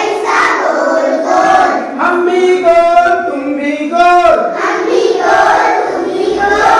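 A group of young children singing a Hindi poem together in unison.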